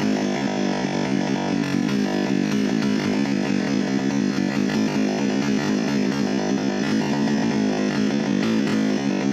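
Background music, a synthesizer-keyboard track over a steady low drone.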